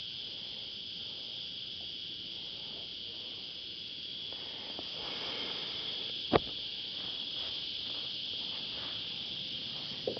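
Cicadas droning steadily in the trees, with a single sharp knock about six seconds in.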